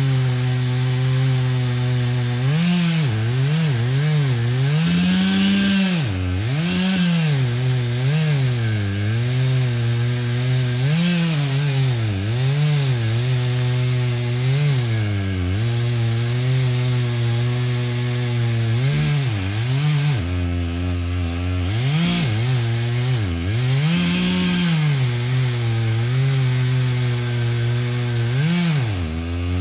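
Chainsaw running continuously, its engine pitch rising and falling again and again as it is throttled up and worked through wood.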